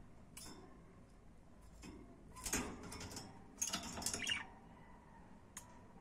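Budgies in a wire cage making two short bursts of scratchy clicking, about two and a half and four seconds in, with a brief chirp during the second burst.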